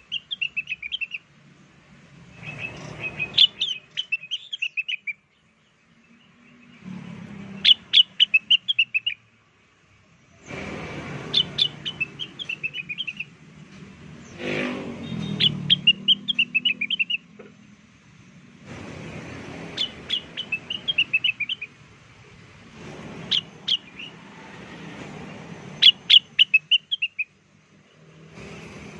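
Cucak wilis (rengganis) leafbird song played as a bird lure: short bursts of quick, high chirping notes repeated every three to four seconds. The recording comes in segments that start and stop abruptly, with a low background rumble under most of them.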